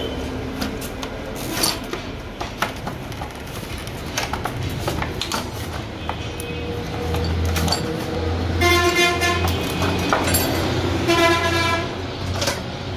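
Clear plastic blister packaging of a brake disc being handled, crackling and clicking. A vehicle horn sounds twice, about two-thirds of the way through and again near the end, over a low engine hum.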